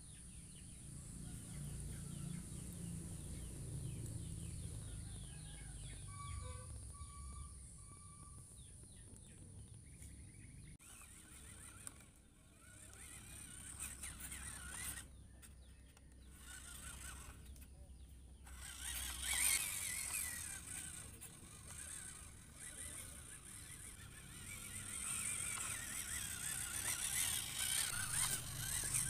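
WPL C24 RC truck's small electric motor and gears whirring as the truck crawls over wet dirt, louder in the second half. A few short animal calls come about six to eight seconds in.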